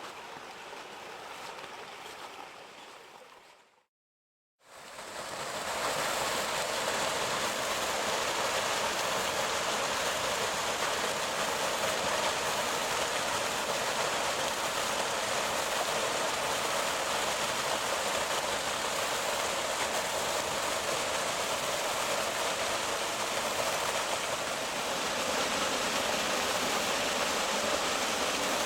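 Waterfall water falling with a steady, even rush. A quieter stretch at the start stops abruptly a little under four seconds in, there is a brief silence, and the rush begins about a second later.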